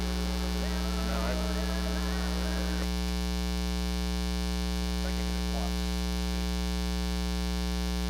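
Loud, steady 60 Hz mains hum with a buzzy ladder of overtones: ground-loop noise induced into the recording by powering the camera from its AC adapter.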